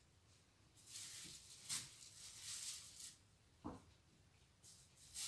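Faint rustling of yarn as stitches are worked with a metal crochet hook, with two soft clicks about two seconds apart.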